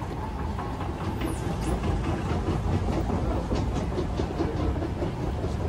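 Steady low rumble of a large airport terminal concourse, with a run of light clicks and ticks in the middle.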